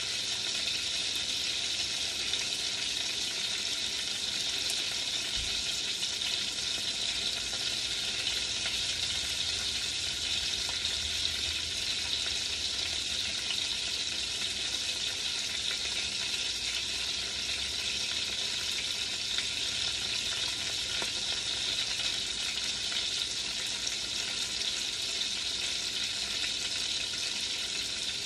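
Chicken sizzling steadily in hot oil in an enameled cast iron Dutch oven, with faint scattered crackles.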